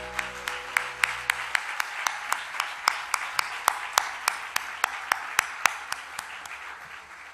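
Audience applauding, with one clear, steady clap at about three a second standing out above the crowd; the applause dies away near the end. The last notes of the music fade out in the first second and a half.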